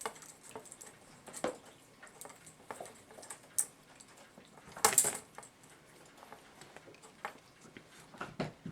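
Light metallic clicks and taps of a steel clock mainspring being handled and eased open as grease is worked into its coils, with one louder clink about five seconds in.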